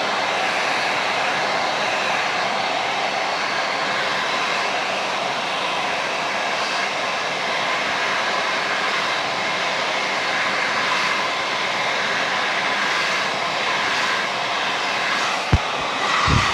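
Handheld blow dryer running steadily: an even blowing rush with a faint high whine. Two short knocks near the end.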